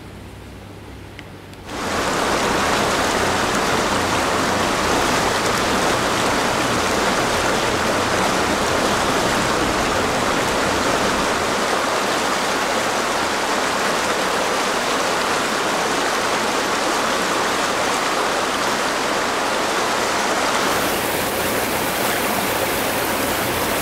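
Shallow, turbulent river water rushing over rocks and rapids in a steady, dense rush, starting suddenly about two seconds in after a short quiet stretch. It is recorded through a Sony ECM-XYST1M stereo microphone with its low-cut filter on. About three seconds before the end it switches to the Sony a6000 camera's built-in microphone, and the rush turns brighter and hissier.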